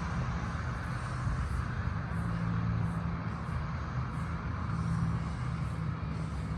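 A motor vehicle's engine running steadily, a low hum with an even wash of noise over it.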